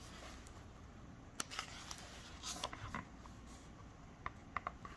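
A picture book's page being turned by hand: a faint paper rustle with several soft clicks and taps.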